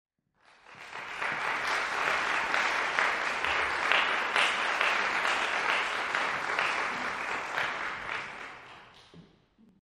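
Audience applauding, swelling in about half a second in and dying away near the end.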